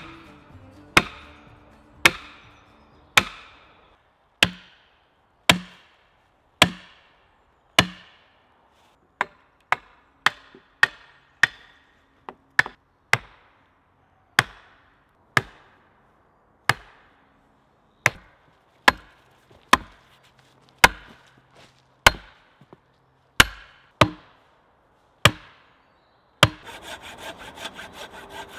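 Axe chopping into cedar logs, sharp single strikes about once a second, then quicker and less regular strikes on the wood, as log notches are cut. Near the end a hand saw starts sawing back and forth through a thin branch.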